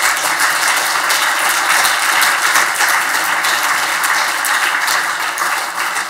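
Loud audience applause: many hands clapping in a dense, steady patter.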